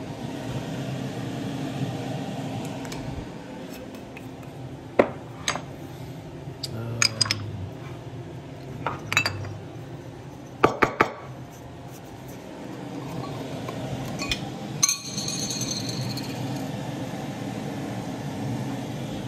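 Glass spice jars clinking sharply several times as they are handled and set down, over a steady low background hum.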